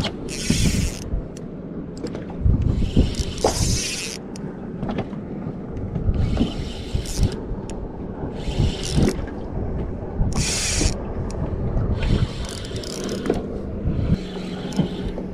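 Spinning reel being wound against a hooked fish, its drag clicking and giving line in several short bursts as the fish pulls.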